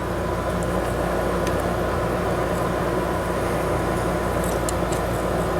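A steady low mechanical hum with a noisy rush over it, unchanging throughout, and a few faint light ticks.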